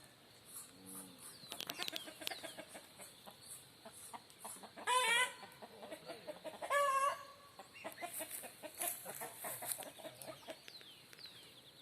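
Chickens clucking, with many small chirps and ticks, and two louder wavering calls about two seconds apart in the middle.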